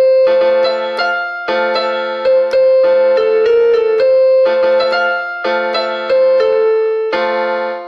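Instrumental break of a song on a piano-sounding keyboard: chords and melody notes struck about every half second, with no singing.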